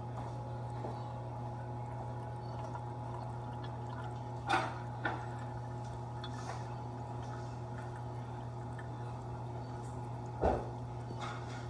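Water trickling and splashing in a Red Sea 300XL reef aquarium's circulation, over a steady low hum. A few brief louder noises stand out, about four to five seconds in and again near the end.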